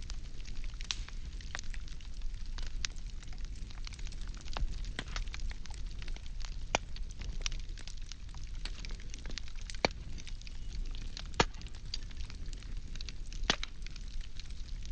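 Wood fire burning, crackling with irregular sharp pops and snaps over a low steady rumble, a few of the pops louder in the second half.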